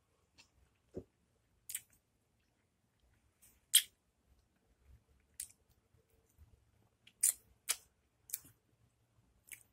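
Quiet, wet mouth smacks and sucking sounds from chewing a sour lemon slice: a series of short, sharp clicks about a second apart, with one dull thump about a second in.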